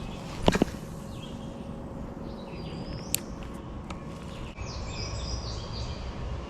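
Songbirds chirping and singing in short phrases over a steady low background noise. There is a sharp double click about half a second in, which is the loudest sound, and another single click about three seconds in.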